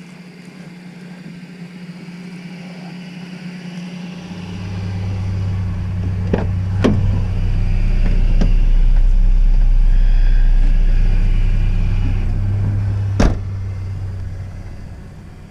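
A deep, low rumble that builds over several seconds, peaks, then fades, like a vehicle passing, over a steady hum of honeybees at an open hive. A few sharp knocks, one near the end the loudest.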